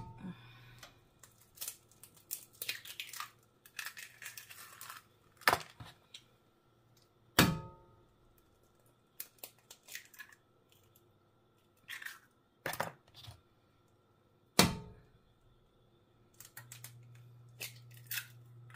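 Raw eggs being cracked and their shells pulled apart over a frying pan: several sharp cracks of shell with crackly, tearing shell sounds between them. A low steady hum comes in near the end.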